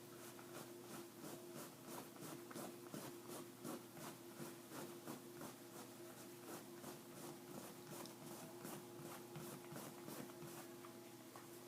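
A white cloth being rubbed over bleached stains, a faint scratchy rubbing in quick, even strokes about three a second, over a steady low hum.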